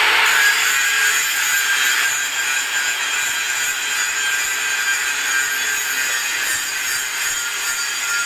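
7-inch angle grinder (AG7) grinding the end of a steel pipe: a steady, high, harsh grind of the abrasive disc against the metal.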